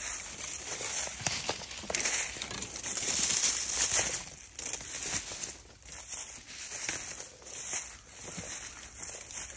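Dry leaves rustling and crunching underfoot as someone walks, an uneven run of crinkling noise with many small cracks, loudest about three to four seconds in.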